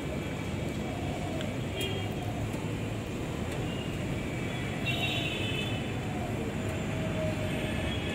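Steady low rumble of city road traffic, with a few faint wavering tones above it.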